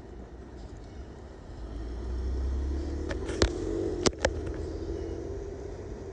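A car engine running, swelling about two seconds in and then fading, with three sharp knocks close together midway.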